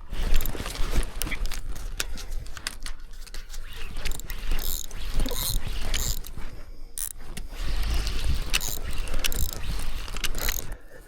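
Fishing reel mechanism working under the strain of a hooked fish, with many sharp irregular clicks over a low rumble.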